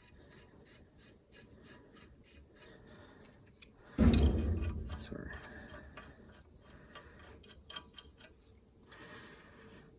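Faint rubbing and light metallic ticks as washers and brass nuts are put onto exhaust manifold studs by hand. A single heavy thump comes about four seconds in.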